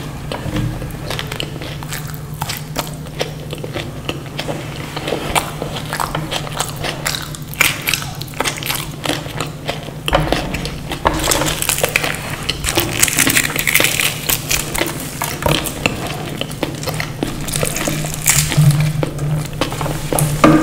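Close-miked eating sounds: chewing and biting, with many small crackling clicks, over a steady low hum.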